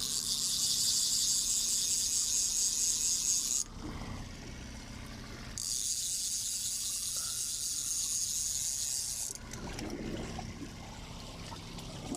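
Salmon fishing reel's ratchet clicking rapidly in two long spells, the first about three and a half seconds, then a pause of about two seconds, then another of about four seconds, while a big spring salmon is on the line.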